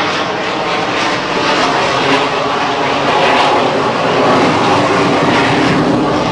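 Loud, steady roar of military jet aircraft engines.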